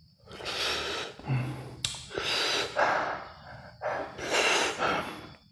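A person breathing hard in and out through the open mouth, about six gasping breaths, reacting to the heat of spicy buldak sauce.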